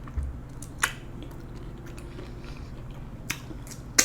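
Close-miked chewing of food with the mouth, marked by three sharp wet mouth clicks, about a second in, past the three-second mark, and at the end.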